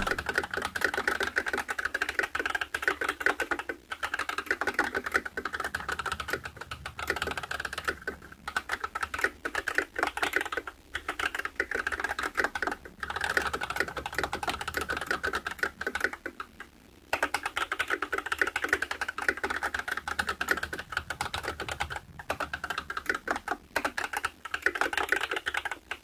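Steady fast typing on a WASD V3 mechanical keyboard in a heavy CNC aluminum case with thick PBT keycaps: a dense run of keystroke clacks, broken by a few short pauses.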